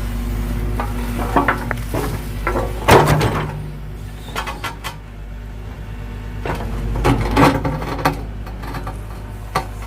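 Excavator engine running steadily while its steel bucket clanks and scrapes in a string of sharp metallic knocks, the loudest about three seconds in.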